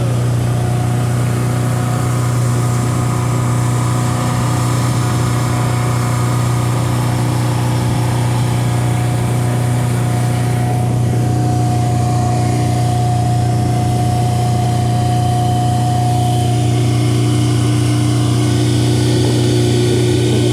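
A boat's outboard motor running steadily at a constant speed, with a strong low hum and a few steady higher tones.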